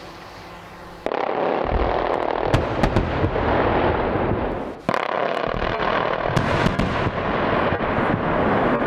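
Quarry-style rock blast for a road cutting, about 20 tonnes of industrial explosive in 482 boreholes, going off suddenly about a second in. It is a long, loud blast noise full of sharp cracks from the charges and flying rock, with a brief drop about five seconds in.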